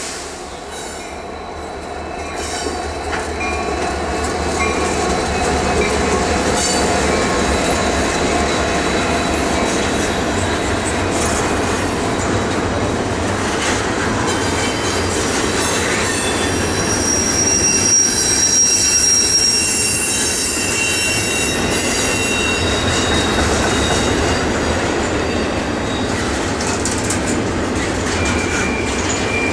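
A freight train led by CSX SD70AC diesel locomotives, growing louder over the first few seconds as it approaches. Then double-stack intermodal container cars roll steadily past, with wheels clattering and squealing at times.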